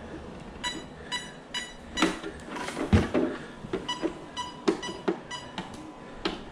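Short, high electronic beeps from the Arrma Felony's XLX brushless speed controller, played through the motor: three about half a second apart around a second in, then a quicker run of about six from four seconds in. A couple of knocks from the car being handled come around two and three seconds in, the second the loudest sound.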